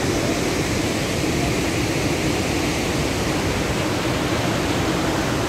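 A large waterfall's steady rush of falling water, an even unbroken noise.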